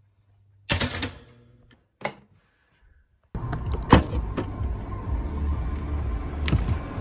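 Everyday handling sounds: a sudden clatter about a second in that dies away, a short knock at two seconds, then a few seconds of continuous rustling and bumping with sharper knocks in it.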